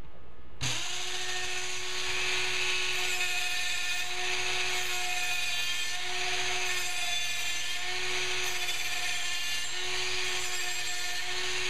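Ryobi rotary tool with a small drum sander starts up about half a second in and runs steadily with a high motor whine and a grinding hiss. Its pitch wavers slightly as it sands the burred edge of a plated steel mortar-mixer paddle blade smooth.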